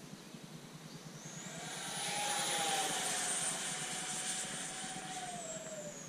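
Twin 64 mm electric ducted fans of a Freewing F-14 Tomcat model jet whining as the jet flies past: the whine swells to its loudest about two to three seconds in, then drops in pitch and fades as the jet goes by.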